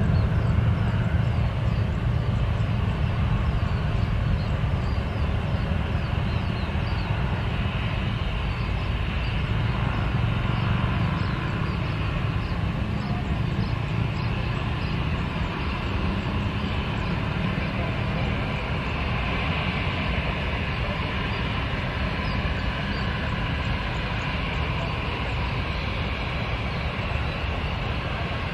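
Steady low rumble of a twin-engine jet airliner's engines as it rolls along the runway, mixed with passing road traffic, slowly easing off. A faint high chirp repeats over the top.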